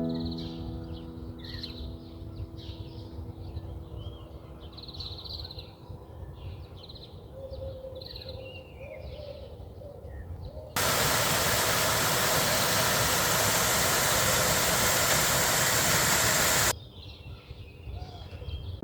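Birds calling over a low rumble for the first half. About eleven seconds in, a loud, steady rush of water noise cuts in abruptly, runs for about six seconds and cuts off just as suddenly, and the bird calls return.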